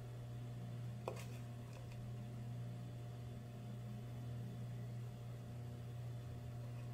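Steady low hum, with a light click about a second in as a wooden spatula works stir-fried anchovies out of a nonstick pan into a small bowl.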